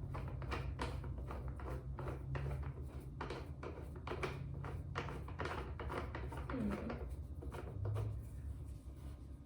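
Irregular knocks, taps and rustling from cat tree parts being handled and fitted together, several a second, over a steady low hum.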